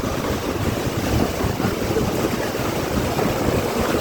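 Strong wind rushing and buffeting the microphone, a steady low-heavy noise with no pauses.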